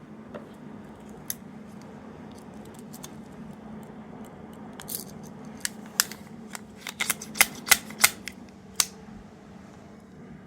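Small hard plastic parts being handled, most likely the capsule toy. There are sharp irregular clicks and taps, bunched together from about five to nine seconds in, over a steady low hum.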